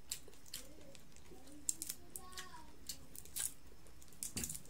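Scattered crisp clicks and crackles of a fried buttered shrimp's crispy shell being peeled off by hand, the loudest about three and a half and four and a half seconds in.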